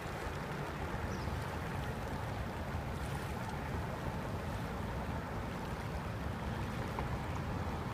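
Steady rushing noise of a flooded river's current, with a low, uneven wind rumble on the microphone.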